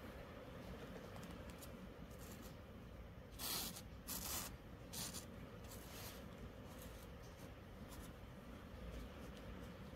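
A gloved hand sliding and rubbing small pieces of net mesh fabric across a cloth surface: a few short, soft rustling swishes around the middle, over a faint steady background.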